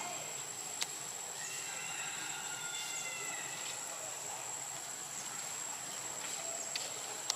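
Steady outdoor ambience: an even hiss with a constant thin high-pitched insect drone, a few soft clicks, and faint distant voices a couple of seconds in.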